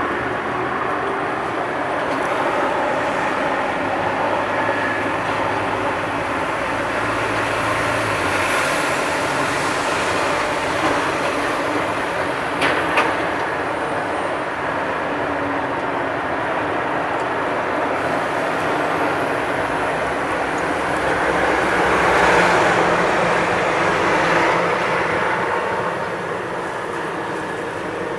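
City street traffic noise, steady throughout, with a louder vehicle passing about three quarters of the way through and a single sharp click a little before halfway.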